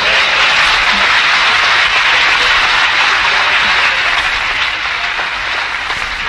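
Audience applauding after a choir's song on a 1969 live concert recording transferred from a worn, warped vinyl LP. The clapping is steady and dense, then slowly thins toward the end.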